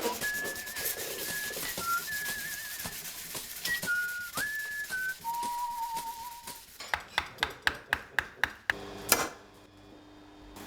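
A person whistling a tune in held notes, some with a wobble. The whistling stops after about six and a half seconds. A quick run of about ten light knocks follows, about five a second, then a short rush of noise and a faint steady hum.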